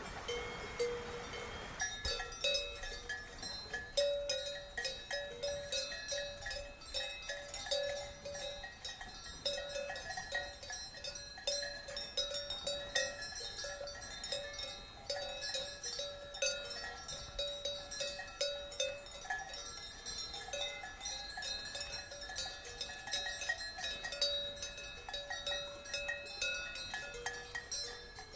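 Several cowbells on grazing cows clanking irregularly and overlapping, a steady jangle of metallic rings that thickens about two seconds in.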